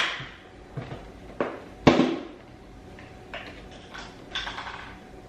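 Kitchen handling sounds: a few sharp knocks and clacks of items set down on a counter, the loudest about two seconds in, followed by softer scraping and rustling.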